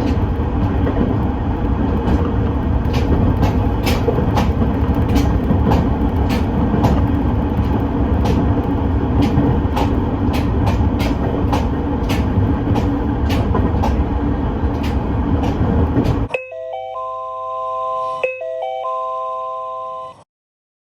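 Train running on rails, a steady heavy rumble with wheels clicking over rail joints. About sixteen seconds in it cuts off abruptly and is replaced by an electronic chime of several steady tones, played twice.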